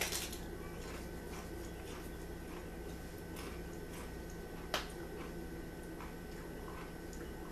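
A bite crunching into an oven-warmed Cinnamon Toast Crunch taco shell right at the start, then chewing with faint scattered crunches and one sharper crack a little under five seconds in.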